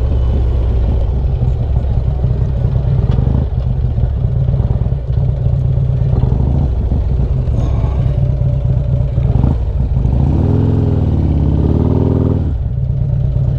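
Harley-Davidson Street Glide's V-twin engine running as the bike rolls slowly at low speed. About ten seconds in, the engine pitch rises and falls again.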